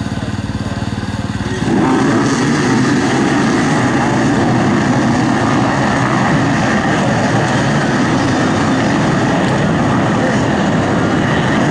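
A pack of dozens of dirt bikes running steadily at the start line, then all revving hard at once about two seconds in as they launch together. The result is a dense, continuous din of many engines.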